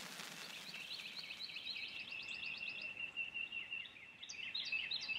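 Faint birdsong: a fast trill of high repeated chirping notes, with more chirps overlapping it in the second half.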